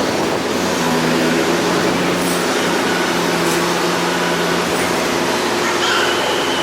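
Dodge Charger's V8 running at a steady speed on its stock, catalytic-converter mid pipes: an even, unchanging drone. This is the car's exhaust note before the catless mid pipes go on.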